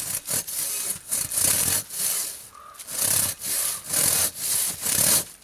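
Silky Katanaboy 650 folding saw cutting through a log on the ground, the long blade rasping through the wood in a steady series of back-and-forth strokes, with a short pause about halfway through.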